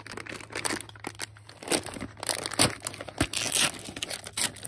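A foil-lined plastic chip packet being torn and pulled open by hand, with irregular crinkling and crackling throughout.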